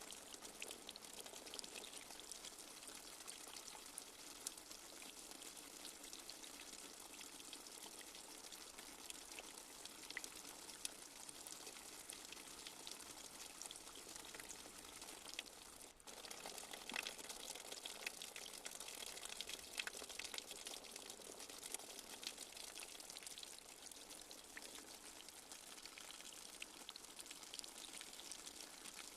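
Light steady rain: an even hiss dotted with many small drop patters. About halfway through it dips briefly, then carries on a little heavier.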